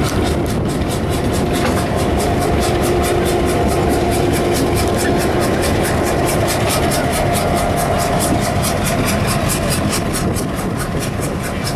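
Diesel locomotive engines running steadily, a low rumble with a steady hum and an even ticking beat of about five a second.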